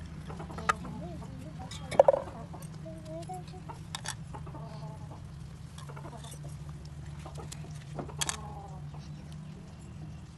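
Domestic chickens clucking on and off, with short calls about two, three, five and eight seconds in, over a steady low hum. A sharp knock about two seconds in is the loudest sound.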